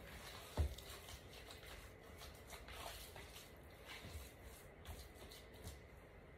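Faint squishing and rubbing of hands kneading ground turkey meatloaf mix with oats, eggs and seasoning in a mixing bowl, with a few soft knocks, the loudest just over half a second in.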